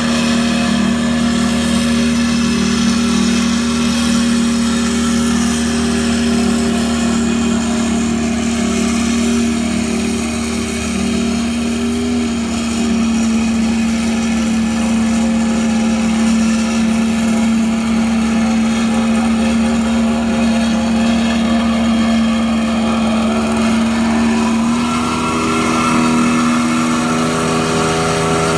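Small petrol engine of a walk-behind double-drum roller running steadily as it compacts bare soil, a constant engine hum. A little before the end the engine note changes and brightens.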